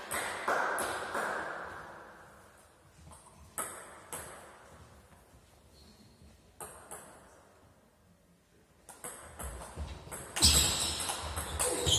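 Table tennis ball clicking sharply off bats and table: a few single ticks, then a quick rally of clicks near the end with footwork thuds on the hall floor and one loud hit.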